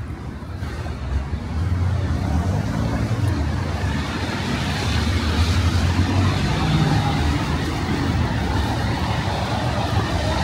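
Cars driving past on a rain-wet city street, their tyres hissing on the wet asphalt over a low traffic rumble. The noise grows louder about a second and a half in and stays steady after that.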